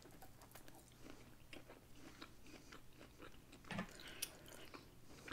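Faint close-miked chewing of a bite of jalapeño cheddar kielbasa sausage: soft, scattered mouth clicks, with a couple of louder mouth sounds about four seconds in.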